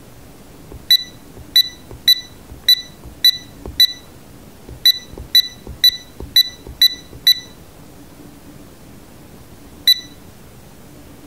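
Short electronic buzzer beeps from an Arduino gas-sensor box, key-press beeps as its touch-screen Alarm+ button is tapped to set the alarm threshold: a dozen beeps about two a second, each with a faint tap, then a single beep near the end as the on/off button is pressed.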